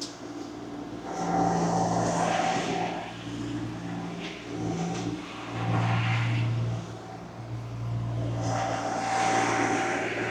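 Engine of a compact earthmoving machine running steadily, swelling louder three times as it works under load, with a hiss at each swell.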